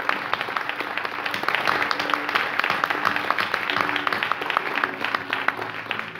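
Congregation applauding: many hands clapping at once, a dense irregular patter that thins out near the end.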